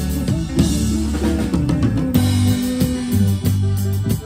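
A small band playing live: drum kit and guitar with keyboard over a busy bass line, with one long held note about halfway through.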